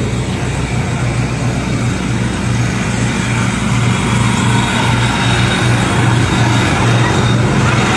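An engine running steadily close by: a deep, even drone under a haze of outdoor noise that grows slightly louder toward the end.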